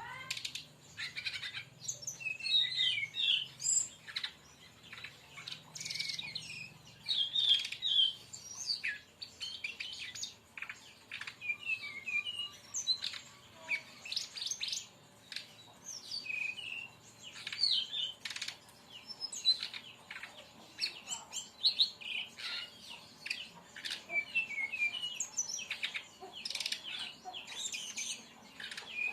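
Brown-chested jungle flycatcher singing a fast, unbroken run of short chirps, squiggly trills and sharp click-like notes, phrase after phrase with brief pauses: the rapid 'tembakan' style of song.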